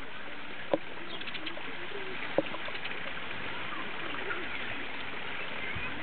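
House sparrows chirping over a steady background hiss, with people talking in the distance. Two sharp clicks stand out, one under a second in and one about two and a half seconds in.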